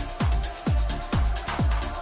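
Electronic dance music with a steady kick drum, about two beats a second, under a held synth note.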